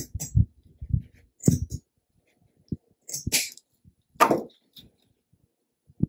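Scissors snipping through thick jute rope, a few short separate cuts with rustling of the rope as it is handled; the loudest come a little past the middle.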